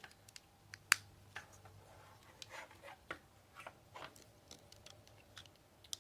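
Scattered light clicks and taps from the plastic panels and joints of a transforming robot toy's arm being moved by hand, with one sharper click about a second in.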